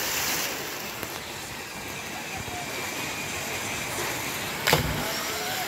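Steady rush of water from a river pool, with a loud splash about four and a half seconds in as a child jumps into the water. Faint children's shouts come through now and then.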